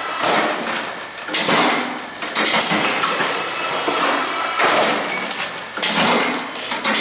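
Tucs vertical form-fill-seal bagging machine running, clattering in loud mechanical bursts about a second apart as it forms, seals and drops bags.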